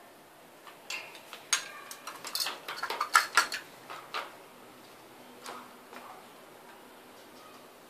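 Clicking and clattering of a puppy at its plastic food bowl on the wire floor of its crate as it starts to eat: a quick run of sharp clicks for about three seconds, then a few single clicks.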